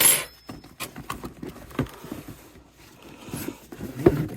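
Cardboard toy box and its packaging being opened and handled: a sharp rasp right at the start, then light rustling and small clicks and knocks of cardboard and plastic.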